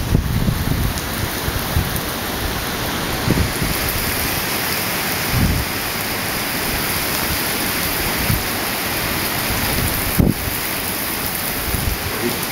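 Heavy hurricane rain pouring down in a dense, steady hiss, with wind gusting through it and a few brief low buffets on the microphone, about 3, 5 and 10 seconds in.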